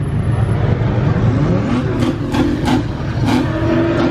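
Car engine revving up, then several sharp exhaust pops about halfway through while the engine keeps running.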